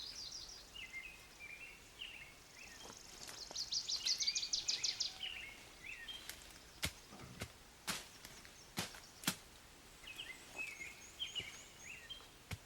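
Small birds singing: a rapid high trill of quickly repeated notes, the loudest part, and short chirping phrases. About halfway through, four or five sharp knocks come in quick succession.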